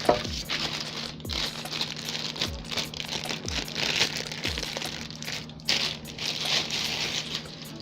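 Plastic packaging crinkling and rustling as it is handled and unwrapped, over background music with a low thumping beat.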